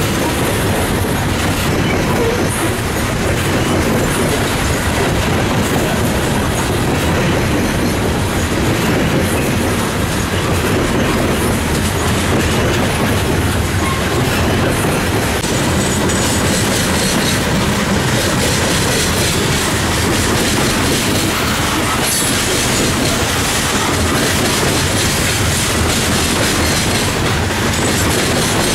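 Loaded coal cars of a freight train rolling steadily past: a continuous rumble with the clatter of steel wheels on the rails.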